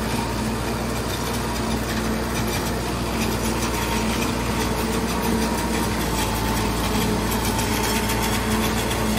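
Tractor engine and its tractor-mounted single-row silage chopper running steadily while chopping standing maize for silage, a constant even machine hum.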